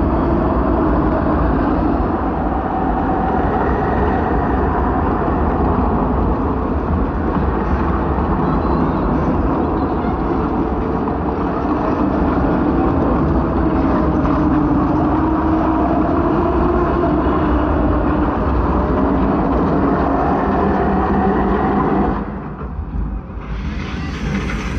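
Tornado wind roaring steadily, with wavering howling tones gliding up and down over it. The roar falls away suddenly about 22 seconds in.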